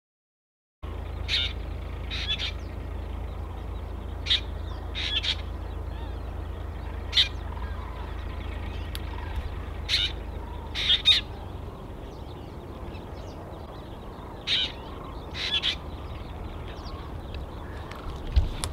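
Birds calling: short, rough calls every second or few, some in quick pairs, over a steady low rumble. The sound starts about a second in.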